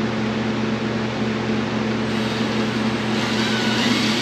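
Steady mechanical hum throughout. Near the end a cordless drill starts to whir with a faint rising whine as it begins driving a wood screw into the 2x4 bed frame.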